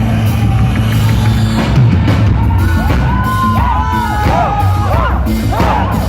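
Live rock band music, an instrumental intro with sustained low tones, with the crowd shouting and cheering over it.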